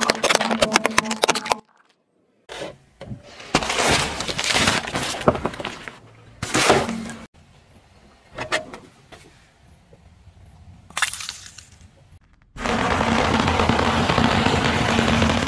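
A car tyre crushing objects in a string of short clips: cracking and crunching of plastic, then several separate crunching bursts with silent gaps between them. From about thirteen seconds there is a steady, dense crunching as the tyre rolls over a pile of crunchy cereal.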